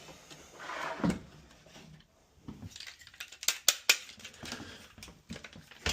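Hand tools and small metal parts being handled, with a cluster of sharp metal clinks a little over three seconds in and some rustling and scraping before it.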